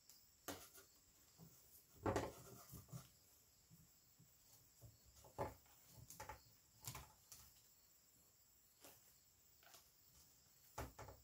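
Faint, irregular rustles and clicks of artificial leaf stems and pre-lit twig branches being pushed into a wicker basket, the loudest about two seconds in.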